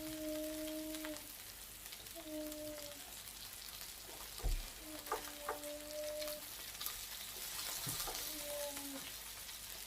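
Meat sizzling steadily on a Tefal gourmet tabletop grill plate. A steady low pitched tone comes and goes about four times over the sizzle. There is a thump about halfway through, followed by a few light clicks.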